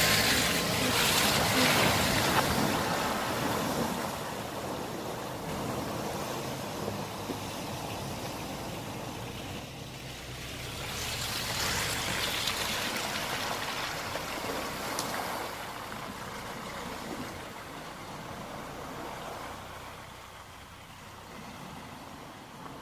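A four-wheel-drive ute drives through muddy water, its engine running low under the rush of splashing. The splashing surges loudest at the start and again about eleven seconds in, then eases.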